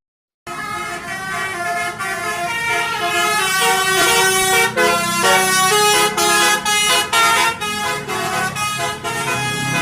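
Tour bus's Basuri musical air horn (telolet) playing a tune: several horn tones sounding together and stepping quickly from note to note. It starts about half a second in, after a brief dropout.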